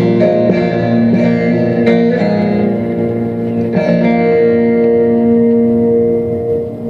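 Instrumental closing passage of a Turkish folk song (türkü) on a plucked string instrument, settling into a long held note that fades near the end.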